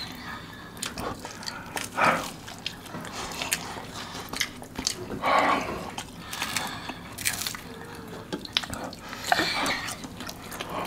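Wet chewing, lip-smacking and mouth clicks of people eating sauce-covered fried chicken, with fingers being sucked and licked.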